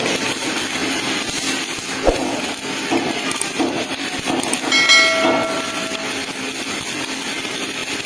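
MIG welding arc running steadily with a continuous crackling hiss. A brief ringing tone sounds around five seconds in.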